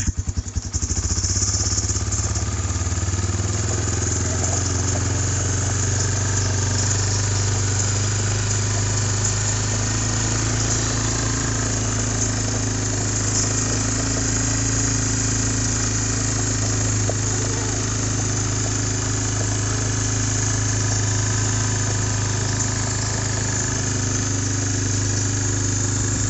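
Engine of a small farm vehicle running steadily at an even speed, with a constant low hum throughout.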